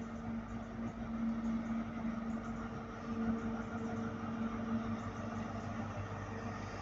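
Diesel engine of a Class 43 HST power car running with a steady, even hum as the train rolls slowly into the platform.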